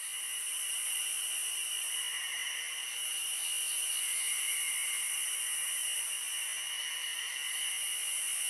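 Night chorus of crickets and other insects: a steady, high-pitched chirring.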